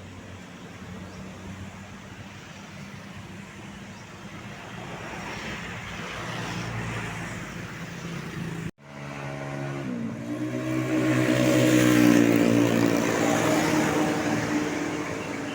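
Road traffic, then a large tour bus's engine passing close by, swelling to its loudest a few seconds after a sudden cut and then easing off. There is no horn.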